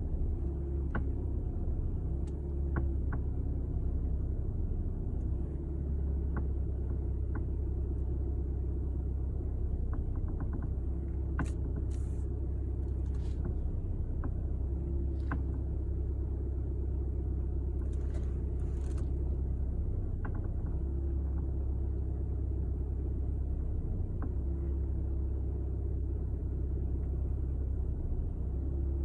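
Skoda Octavia vRS Mk3 rolling at walking pace on full steering lock, its engine running with a steady low rumble, and a scattering of short creaks and clicks from the driver's side front. The creaking on full lock at very slow speed is the fault being shown.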